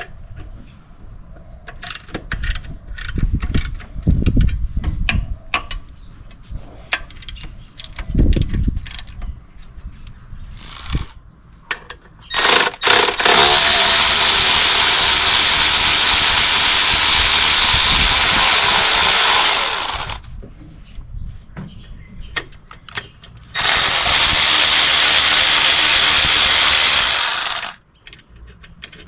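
Cordless 3/8-inch ratchet running in two long spells, about seven seconds and then about four, backing out bolts. Before it come scattered metallic clicks and knocks of hand tools.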